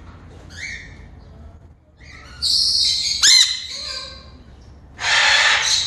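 Parrots calling: a short call just after the start, then loud shrill squawks with a quick up-and-down whistle about three seconds in, and a harsh screech lasting under a second near the end.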